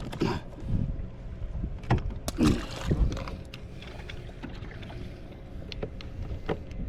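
Scattered knocks and clicks of gear and a fish being handled in a kayak, over a steady low rumble of wind on the microphone.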